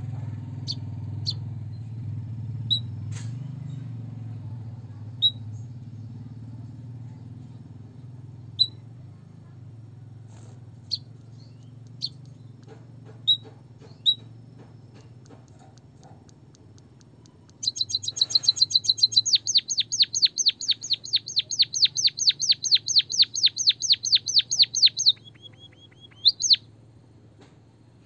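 Songbird chirping: single sharp chirps every second or two, then a loud, fast run of repeated chirps, about five or six a second, lasting some seven seconds. The run ends in a short held note and a rising note. A low rumble fades away under the first chirps.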